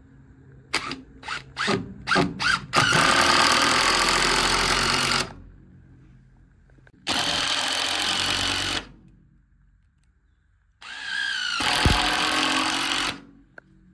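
Cordless drill driving screws into a pine board: a few short trigger stabs to start a screw, then three longer runs of the motor, each about two seconds, with pauses between.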